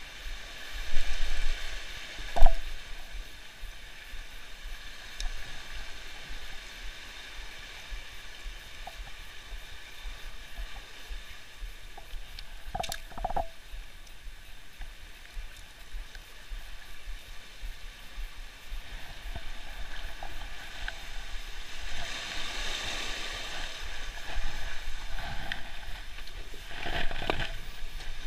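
Sea water washing and sloshing along a shallow shoreline, with wind rumbling on the microphone and a few sharp knocks; the wash swells louder about two thirds of the way through.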